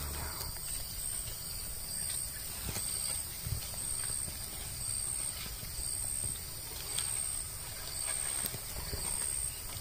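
Outdoor ambience of an insect's short, high-pitched chirps repeating a little more than once a second, over a low rumble with a few faint ticks.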